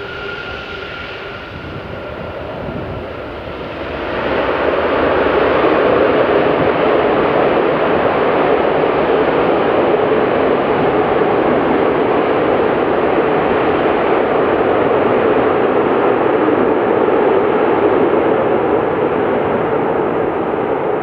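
Airbus A380 jet engines arriving: a faint whine at first, then about four seconds in a sharp rise to loud, steady jet noise that holds.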